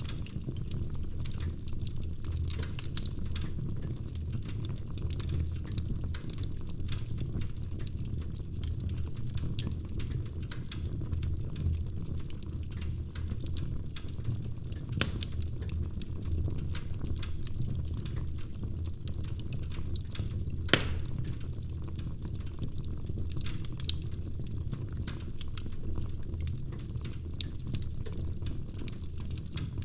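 Wood fire crackling in a fireplace: a steady low rumble of flames under many small scattered pops, with one sharper pop about two-thirds of the way through.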